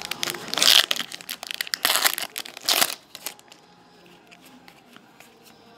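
Foil trading-card pack wrapper crinkling and tearing open by hand, in loud rustling bursts over the first three seconds. After that come faint ticks of cards being flipped through.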